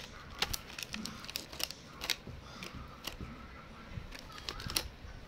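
Cocker spaniel puppy chewing a piece of clear plastic: irregular sharp crinkles and crackles as the plastic is bitten and crushed.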